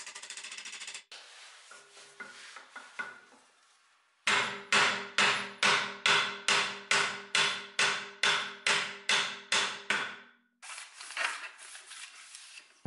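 A quick metallic rattle for about a second, then a steady run of about fifteen hammer blows, about two and a half a second, each followed by metallic ringing. The steel seat ring of a swivel chair is being driven onto its column, struck through a wooden block.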